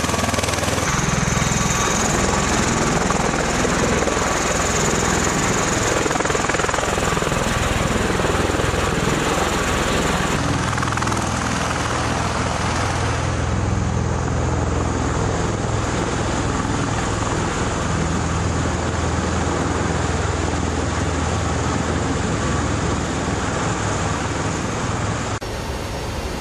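Aircraft noise: a loud, steady engine roar whose character changes abruptly at several points, about a second in, around ten and thirteen seconds in, and shortly before the end.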